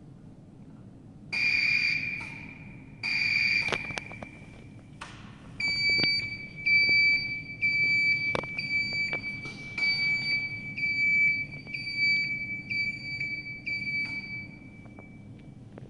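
Electronic beeper on a three-wheeled auto rickshaw: two long beeps, then a steady run of short beeps about once a second that stops near the end.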